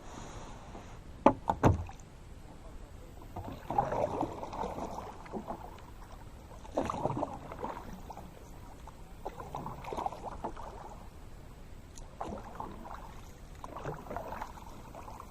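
Kayak paddle strokes swishing through the water, one swell of splashing about every two to three seconds. Two sharp knocks come close together about a second and a half in.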